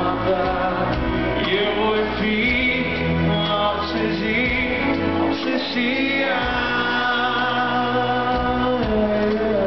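Live rock band playing, with a male lead singer singing over the drums and band, heard from the audience in a concert hall.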